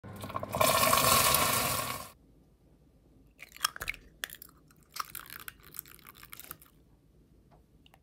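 Freshly made caramel in a glass bowl sizzles loudly for about a second and a half as hot water is spooned into it. Then a utensil clicks and scrapes against a glass bowl as eggs are beaten.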